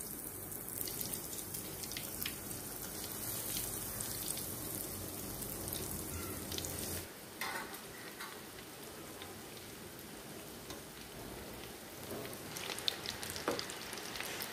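Breadcrumb-coated cheese balls deep-frying in hot oil in a steel kadai: a steady sizzle of hard-bubbling oil. Near the end a metal ladle clicks against the pan a few times.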